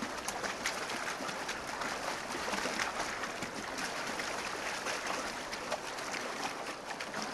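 Rushing river water with many short splashes, as a herd of wildebeest wades and plunges through the rapids.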